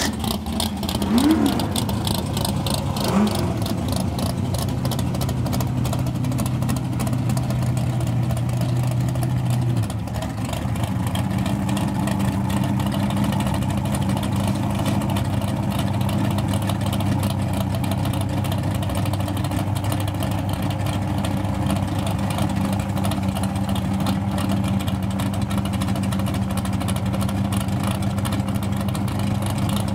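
Chevrolet S-10 drag truck's engine blipping the throttle a couple of times after its burnout, then idling steadily. About ten seconds in the note dips briefly and then holds at a higher steady pitch.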